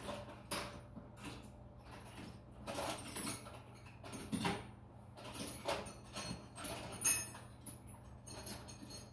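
Loose metal sockets and hand tools clinking and rattling in irregular bursts while someone rummages for the right size socket, over a steady low hum.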